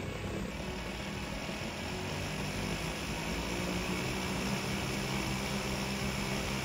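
A treadmill's motor and belt running steadily at 6 km/h, with the electric motors and plastic tracks of a Lego Technic 42131 Cat D11 bulldozer driving against the belt: a steady mechanical hum that grows slightly louder toward the end.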